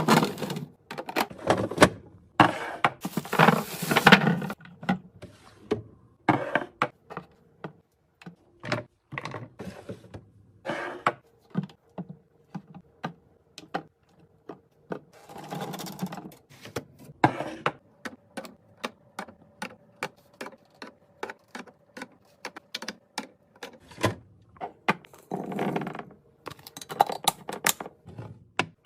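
Fridge restocking: a quick run of sharp clicks and knocks from containers, jars and lids being set down on shelves and snapped shut, with a few longer, noisier handling sounds between them.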